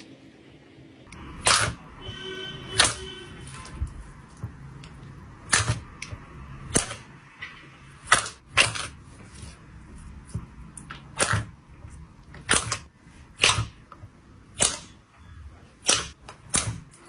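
Slime being played with by hand: sharp, irregular pops and clicks, about one a second, with a short squeak about two seconds in.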